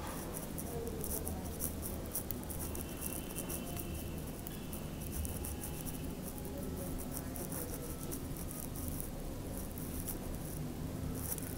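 Hand knitting: thin metal knitting needles clicking and scraping with yarn rustling, many small quick ticks, thinner for a few seconds past the middle, over a steady low hum.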